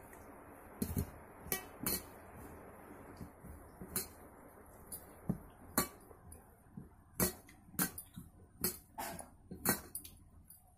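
Irregular light clicks and clinks of stainless steel tableware: dal poured from a steel bowl onto rice on a steel plate, then fingers mixing rice against the plate, a dozen or so sharp ticks coming faster in the second half.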